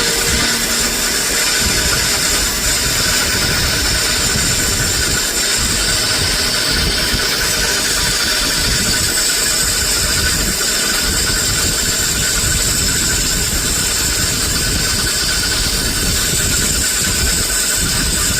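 Machine-shop machinery running steadily: a continuous mechanical hum and hiss with no let-up.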